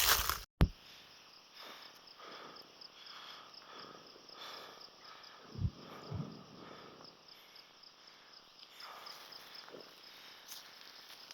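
Insects, likely crickets, chirping in a fast, even high pulse. A brief loud rustle cuts off sharply at the start, and two soft low thumps come about halfway through.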